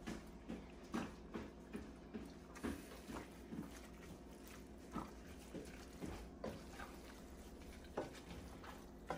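Thick egusi soup in a pot making soft, irregular wet plops, about one or two a second.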